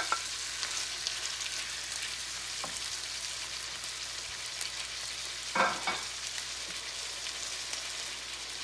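Veal, onions and freshly added chopped tomatoes sizzling in hot oil in a pan, a steady frying hiss. A few light clicks and knocks come through it, the loudest about five and a half seconds in.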